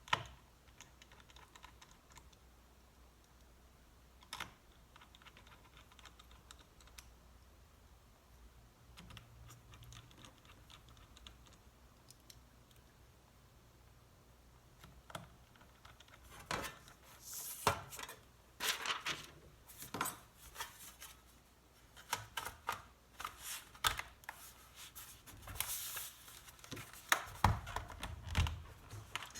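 Small clicks, taps and scrapes of a laptop being handled and reassembled by hand: sparse at first, then a busy run of clicks and scraping from about halfway, with a few dull knocks near the end.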